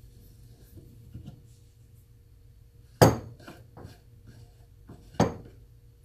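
Two sharp metal clanks about two seconds apart, with lighter clicks and taps between, as an adjustable wrench is worked on and taken off a brass valve nut held in a steel bench vise.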